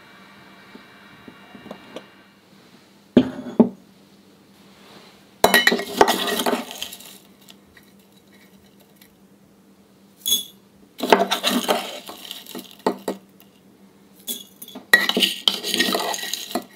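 A metal spoon scooping loose-leaf tea from a metal tea tin and tipping it into a porcelain teapot: clinks of metal on metal and porcelain, with the rustle of dry leaves, in several short bursts. A faint metallic ring dies away in the first two seconds.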